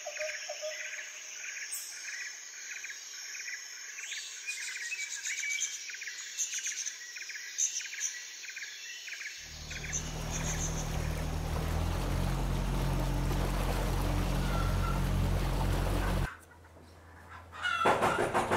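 Birds calling repeatedly in short chirps and clucks for the first half. About halfway through, a steady low hum with a noisy wash takes over and stops suddenly, and near the end a knife chops on a cutting board.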